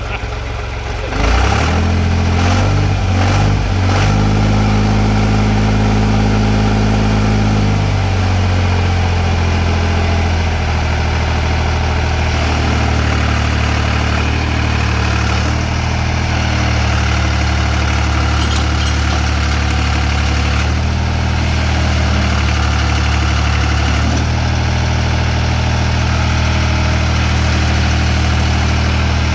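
John Deere 830B loader-backhoe's diesel engine catching about a second in, running unevenly for several seconds, then settling into a steady idle with a few shifts in speed. It runs now that the faulty trigger wire to its fuel shutdown solenoid has been replaced, after 18 months dead from fuel starvation.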